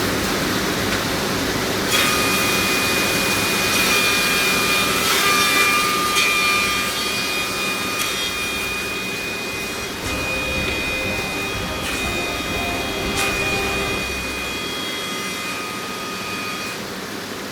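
Heavy-duty crawler-feed thickness planer with a spiral cutter head running, a loud steady noise. A high-pitched whine sets in about two seconds in, with a few sharp clicks scattered through.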